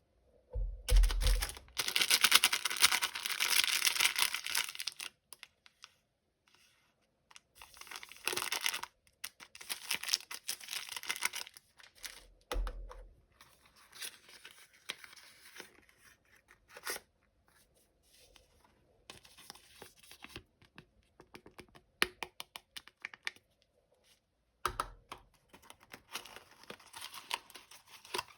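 Toy packaging being torn open by hand: a long tearing stretch starting about a second in, then on-and-off crinkling and rustling with sharp clicks, and more tearing near the end.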